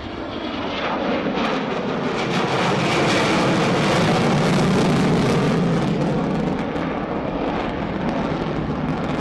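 Jet roar of a B-1B Lancer's four turbofan engines during a low flyby, swelling to a loud peak midway and then fading as it passes.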